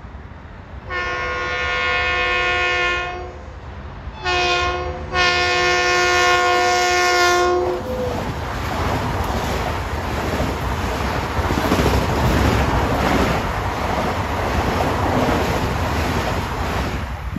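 Long Island Rail Road electric commuter train sounding its horn in a long blast, a short one and another long one as it approaches. It then passes close at speed, a steady rush of wheels on rail with some clickety-clack, dropping away just at the end.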